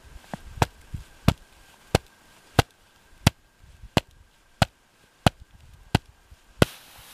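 Gloved hand tapping a snow shovel blade laid on top of an isolated snow column in an extended column test: a steady series of sharp taps, about three every two seconds.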